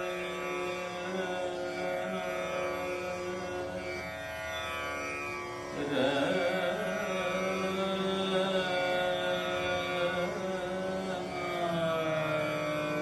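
Tanpura playing a steady, ringing drone of stacked notes. About six seconds in, a louder melodic line with wavering, gliding pitch comes in over the drone.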